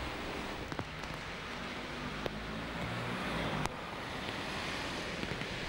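Outdoor street ambience: a steady hiss of traffic and wind, with a few light clicks and a low engine hum near the middle. The background changes abruptly a little past halfway.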